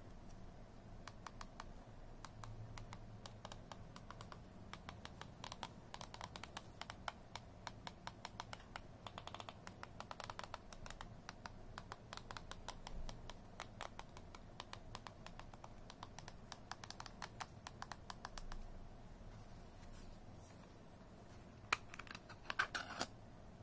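Small keys of an i8 mini wireless keyboard clicking as they are pressed quickly and repeatedly with the thumbs. Near the end come a few sharper plastic clicks as the battery cover on the back is pried open.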